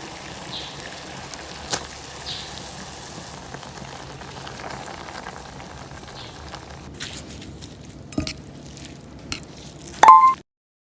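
Food sizzling in a frying pan: a steady hiss with scattered small clicks and pops, and one sharp metallic clink of a utensil near the end.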